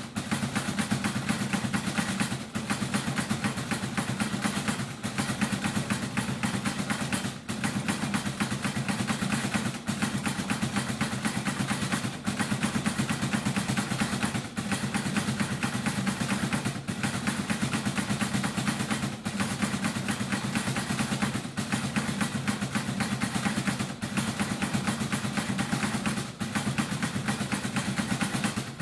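Wooden Easter clapper (klepáč) rattling in a fast, unbroken run of wooden knocks, with a brief break about every two and a half seconds. This is the Good Friday clapping that stands in for church bells.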